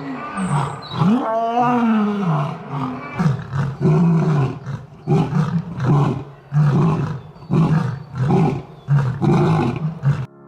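Lion roaring: a long moaning roar that rises and falls in pitch, then about a dozen short, evenly spaced grunts, cut off suddenly near the end.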